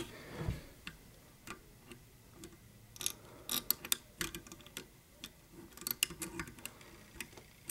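Small irregular metallic clicks and ticks of a hook pick working the levers of an Ilco seven-lever safe-door lock held under light tension, with clusters of clicks about halfway through and again near the end.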